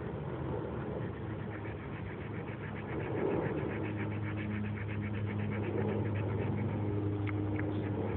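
An engine running steadily: a low, even hum that grows louder about three seconds in, with a rapid, regular pulsing over it.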